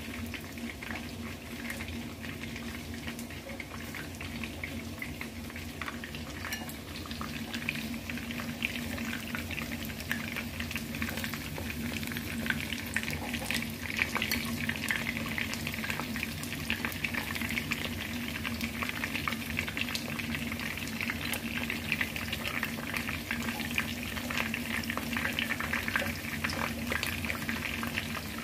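Breaded chicken fillets shallow-frying in hot oil in a pan, a steady dense sizzle and crackle that grows a little louder about ten seconds in.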